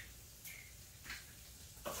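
Quiet, with a couple of faint taps and a short glass clink near the end, as an upside-down essential-oil dropper bottle meets the mouth of a small glass roller bottle to dispense drops.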